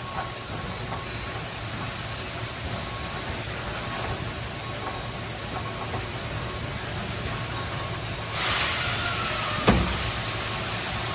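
Machine guard door being opened against a steady machine hum. About eight seconds in, a loud hiss starts and lasts over a second, then ends in a sharp clunk.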